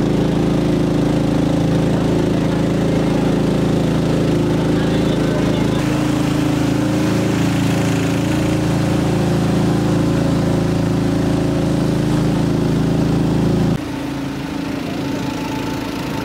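Sonali 170FD 7.5 hp single-cylinder 208 cc petrol long-tail outboard engine running steadily, driving a boat under way. About 14 seconds in the sound cuts to a quieter engine sound.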